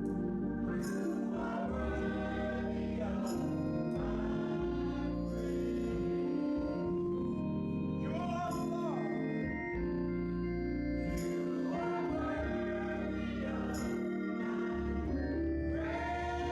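Gospel choir singing with organ accompaniment, sustained chords changing every couple of seconds.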